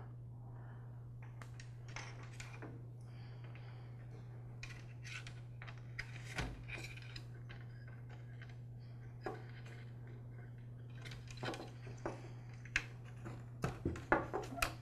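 Faint scattered clicks and light rattles of insulated wires and metal spade connectors being handled and pressed into a plastic string-trimmer handle housing, more of them near the end, over a steady low hum.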